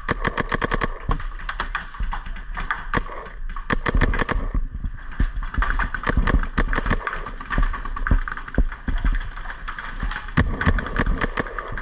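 Paintball markers firing in quick strings of sharp shots, several a second, broken by short pauses.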